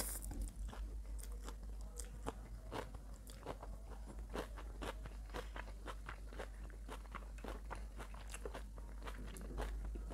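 Close-miked chewing of a mouthful of chow mein noodles with shredded cabbage: a steady run of small crunching clicks, a few each second.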